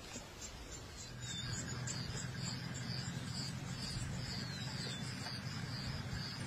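Insects chirping in an even rhythm, about two high chirps a second. A steady low hum comes in about a second in.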